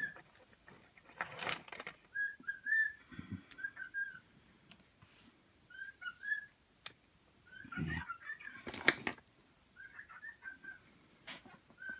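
A small bird chirping in short groups of quick, arched, whistle-like notes, repeated several times, with occasional knocks and rustles of objects handled on a table.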